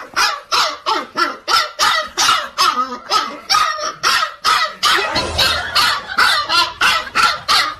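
A dog barking over and over at a steady, quick pace, about three barks a second.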